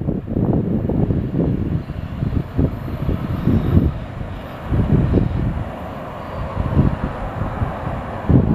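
BNSF autorack freight cars rolling past with a steady rumble, mixed with irregular gusts of wind buffeting the microphone.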